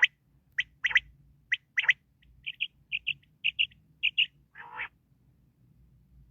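Quail calling: a series of short, sharp high calls, then a quick run of paired chirping notes, and one harsher call near the end.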